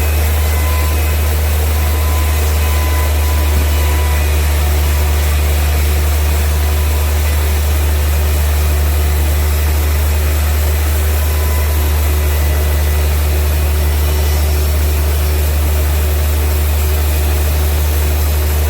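Heavy sawmill machinery running with a steady low hum that does not change.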